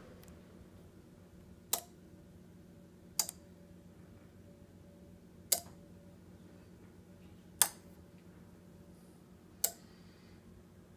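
Five sharp clicks, roughly two seconds apart, from a PS Audio PerfectWave Power Plant 5 power regenerator as its outlet zones are switched on and off from the touchscreen, over the unit's steady low hum.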